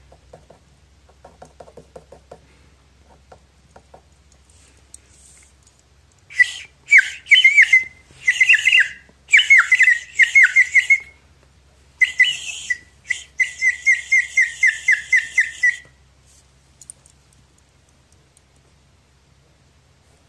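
Blue plastic toy bird whistle blown in several loud warbling, chirping trills, starting about six seconds in. It ends in a fast, even trill of about six chirps a second.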